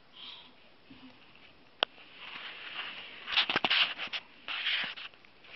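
Rustling and clicking handling noise: a baby's hand and clothing rubbing and tapping close against the phone's microphone, with one sharp click and two bursts of dense scratchy rustling.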